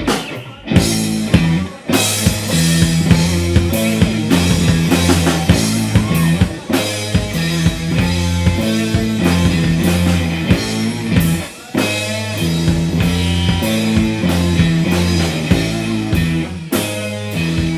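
Live rock band playing an instrumental passage with no singing: electric bass, lead electric guitar and drum kit. The band breaks off briefly near the start and again about two-thirds of the way through, coming back in together each time.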